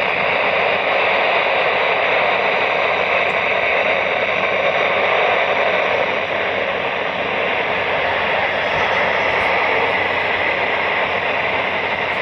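Steady radio static from a weather radio receiver: even hiss with no voice coming through, so the broadcast forecast is lost in the noise.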